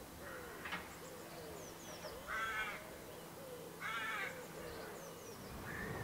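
A crow cawing twice, harsh calls about a second and a half apart, with small birds chirping faintly and a faint steady low hum underneath.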